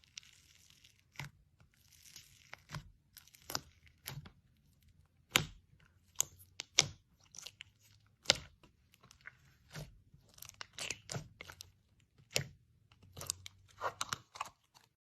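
Slime being squeezed and pressed, giving irregular crisp pops and clicks, with a softer crackling hiss in the first couple of seconds.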